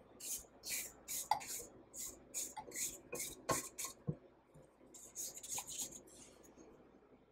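Silicone spatula scraping buttercream down the sides of a stainless steel stand-mixer bowl in quick repeated strokes, two to three a second, with a knock against the bowl about three and a half seconds in. After a short pause, a few more strokes come about five to six seconds in, and then the scraping stops.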